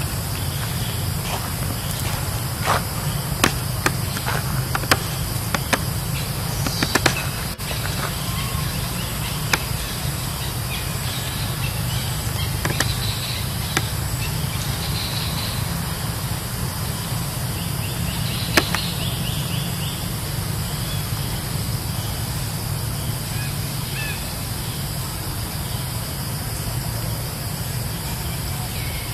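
Outdoor ambience: a steady low rumble, with a run of sharp clicks over the first seven seconds and another at about the middle, and faint high chirps now and then.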